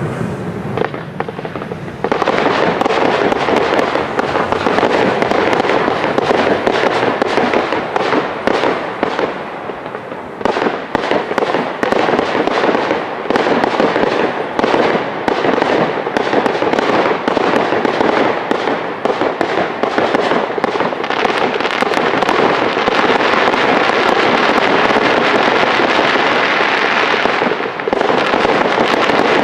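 Aerial fireworks going off in a dense, rapid run of pops and reports that merge into a continuous crackle, starting about two seconds in, easing briefly near ten seconds and again near the end.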